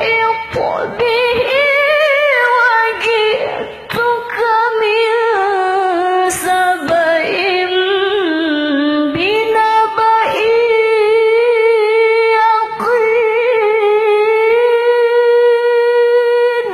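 A woman's voice reciting the Qur'an in melodic qira'ah style, drawing out the syllables in long ornamented runs that rise and fall. Near the end it settles into one long held note that stops abruptly.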